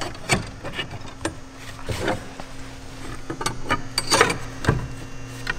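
Steel wedge clamps (hairpins) clinking and knocking against snap ties and wooden 2x4 strongbacks as they are slid into place by hand: a few scattered metallic taps and knocks over a steady low hum.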